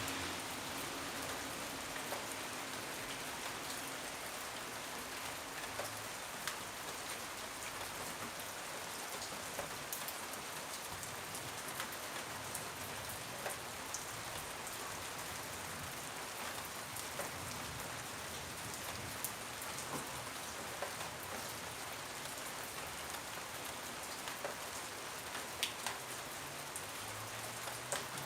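Steady rain falling on a surface, an even hiss with scattered individual drops ticking sharply.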